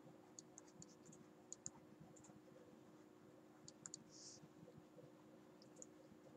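Near silence with a few faint, scattered clicks, typical of a stylus tapping on a tablet screen while writing, and a short soft hiss about four seconds in.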